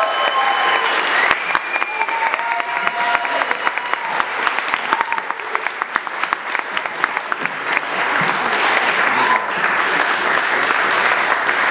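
Audience applauding after a drum solo, with cheering voices calling out over the clapping in the first few seconds.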